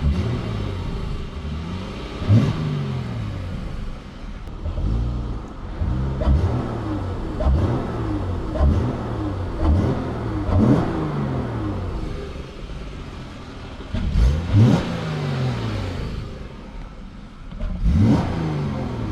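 2018 Dodge Charger engine idling and being blipped about eight times. Each rev rises quickly and falls back to idle, with a K&N high-flow drop-in air filter fitted, which the owner says gives a faster throttle response and a deeper tone.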